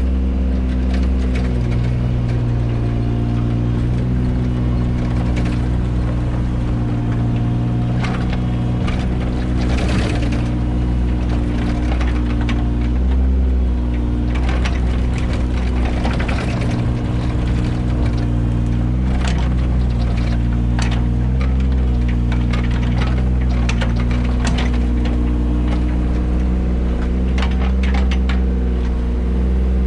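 Mini excavator's diesel engine running steadily under working load, its pitch shifting slightly a few times, with scattered knocks and scraping of the digging work.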